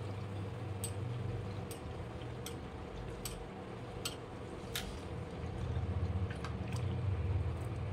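Samak (barnyard millet) rice being washed by hand in a bowl of water: soft wet squishing with light clicks a little under a second apart, fainter after about five seconds, over a steady low hum.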